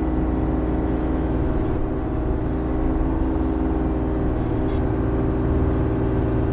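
Bobcat E35i mini excavator's diesel engine running steadily under load while the boom and bucket dig and scrape clay soil, heard from the operator's cab.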